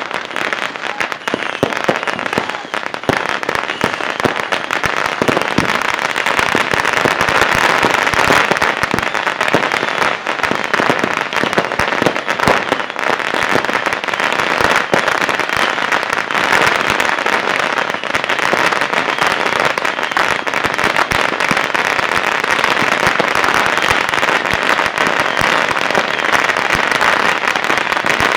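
Many strings of firecrackers popping at once in a dense, continuous crackle. Now and then a louder single bang stands out above it.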